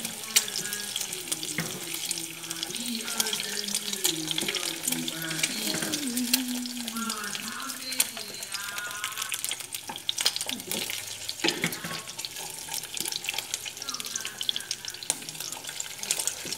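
Eggs frying in hot oil in a nonstick pan: a steady crackling sizzle with many small spattering pops.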